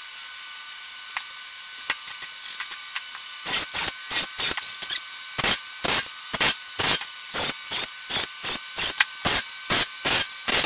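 Cordless drill boring pilot and countersink holes in a wooden 2x6, run in short bursts about twice a second starting a few seconds in, after a few light clicks and taps.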